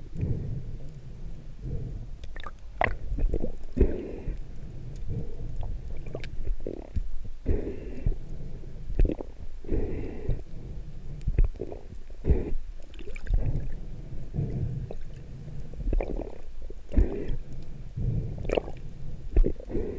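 Muffled underwater rumble heard through an action camera's waterproof housing, with frequent short knocks and clicks as a freediver swims and handles a speared fish and spear gear.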